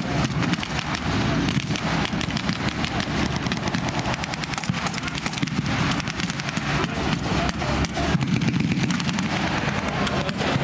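Dense, continuous blank gunfire from many World War II-era rifles and machine guns, shots crackling in quick irregular succession, over the steady low running of vehicle engines.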